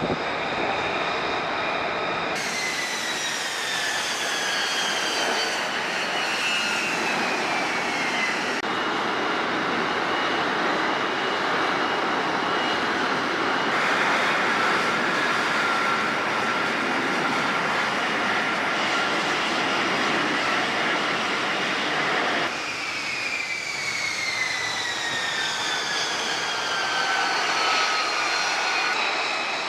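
F-35B Lightning II jet engine running: a steady rush of jet noise with a high whine that falls slowly in pitch, twice. The sound changes abruptly several times.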